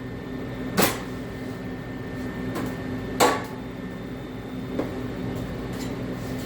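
A few short knocks and clanks, the loudest about three seconds in, as steel parts or tools are handled on a workbench, over a steady electrical hum.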